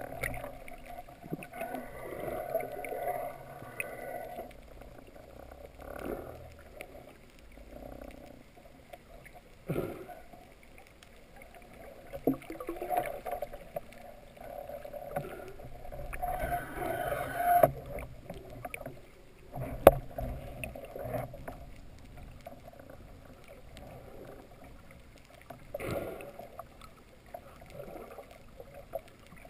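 Muffled underwater noise picked up through a waterproof camera housing: water washing and gurgling around the diver, broken by occasional knocks and clicks from the camera and the speargun being handled.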